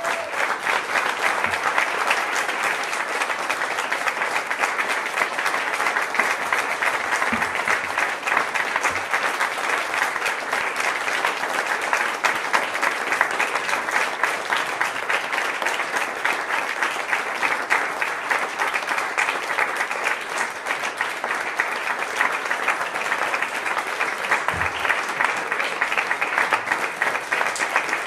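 Audience applauding steadily: many hands clapping in a dense, even patter that holds at the same level throughout.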